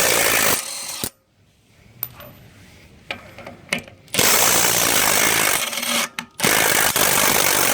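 Milwaukee M12 CIW12 cordless half-inch-drive impact wrench hammering on wheel nuts with a 21 mm impact socket, undoing them. There is a short burst at the start, then a pause of about three seconds, then two long bursts with a brief break between them.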